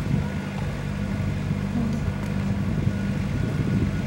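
An engine running steadily at idle, a low even drone, with light knocks of lumber being handled on the slab.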